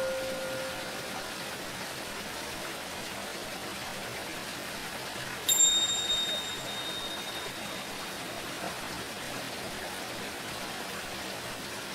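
A Tibetan singing bowl rings out from a strike just before, fading over the first second, over a steady hiss of water. About five and a half seconds in, a tingsha is struck once: a high, clear ring that fades over about a second and a half.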